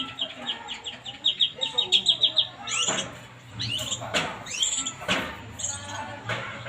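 A kinoy songbird calling: a fast run of high chirps, about eight a second, for the first couple of seconds, then a series of sharp, high, downward-sliding call notes.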